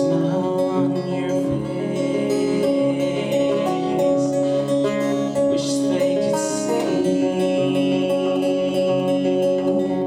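Acoustic guitar strummed in a steady rhythm, with a man singing over it.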